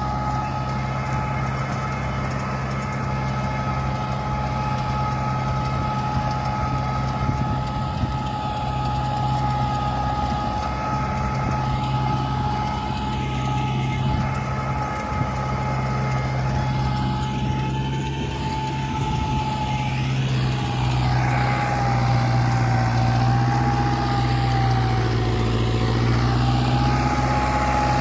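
Tractor diesel engine running as it drives a rotavator through the soil, with a steady high whine over the engine. The sound grows louder over the last several seconds, and the whine wavers in pitch as the tractor comes near.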